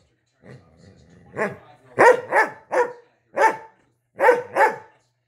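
A Doberman demand-barking: seven sharp, loud barks, singly and in quick runs of two and three, a bark it uses to demand attention from its owner.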